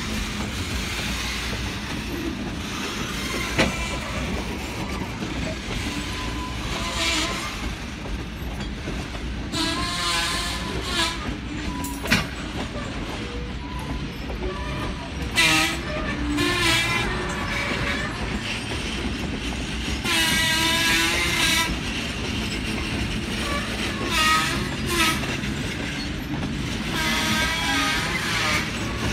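Freight train cars rolling past: a steady rumble and rattle of wheels on rail, with several wavering high squeals from the wheels, the longest about twenty seconds in, and a couple of sharp clanks.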